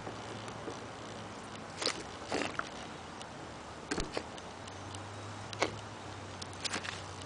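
A few faint, scattered knocks and rustles over a low steady hum, like the handling of a target can.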